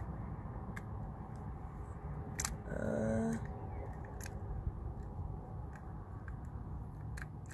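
Faint scattered clicks of a precision screwdriver and plastic parts as an Apple Magic Mouse is taken apart, over a steady low rumble of wind on the microphone. A brief pitched sound comes about three seconds in.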